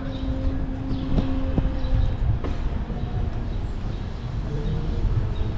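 Wind rumbling on the microphone of a moving bicycle, with a steady low tone held for about the first two seconds and a few light clicks.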